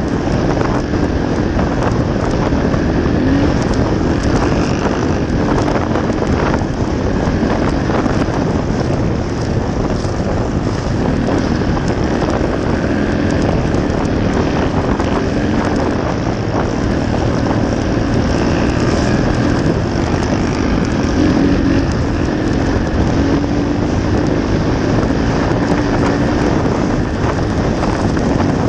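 Dirt bike engine running at speed on a gravel trail, heard from on board, its pitch holding fairly steady with small rises and falls of the throttle. Heavy wind noise on the microphone runs under it.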